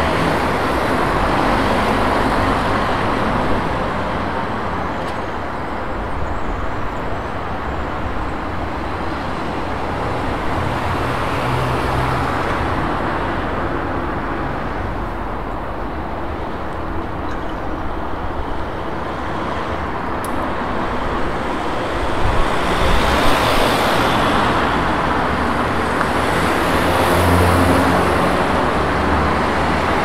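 City street traffic: a steady wash of cars and other motor vehicles running, swelling and fading as vehicles pass, with a louder stretch late on.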